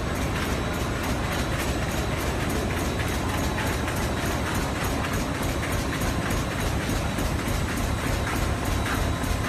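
Artificial grass turf-making machinery running in a factory hall: a loud, steady mechanical din with a rapid, even clatter.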